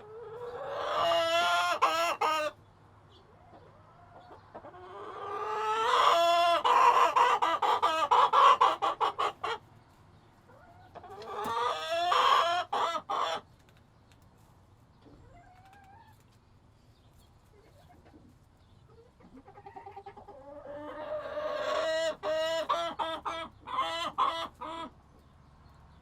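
Chickens clucking and calling in a coop. Four loud bouts swell up and end in a run of short, choppy notes: about a second in, around six seconds in, around twelve seconds in, and a long one starting near twenty seconds. Between the bouts there are quieter gaps.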